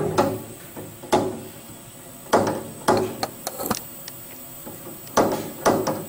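5C collet closer on a Tormach 15L Slant-Pro lathe being worked by hand: about six sharp metal clunks, several in quick pairs, as the drawbar lever is thrown to close and release the collet on the tool shank.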